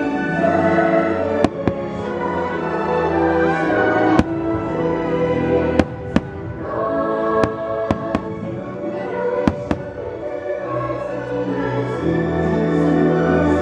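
Fireworks show: aerial shells bursting with several sharp bangs over loud show music with a choir playing on the park's loudspeakers.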